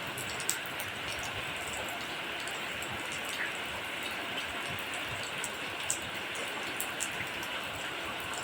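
Steady rain falling, a constant hiss with scattered sharper drop hits, a few of them louder about half a second in and near six seconds in.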